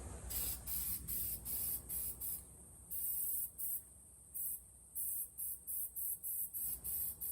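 Aerosol can of Rust-Oleum High Heat paint sprayed in a string of short hissing bursts, about two a second, with a couple of brief pauses.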